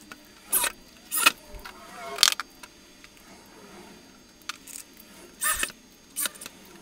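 Corded electric drill driving short screws through metal rails into a steel mounting plate, in a series of brief whirs with a quieter pause in the middle; one near two seconds in builds up as the screw seats.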